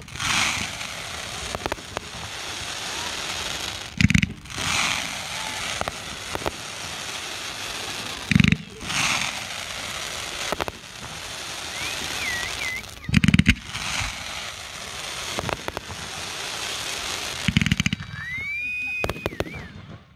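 Aerial fireworks display: a loud bang about every four to five seconds, with a steady hiss between the bangs.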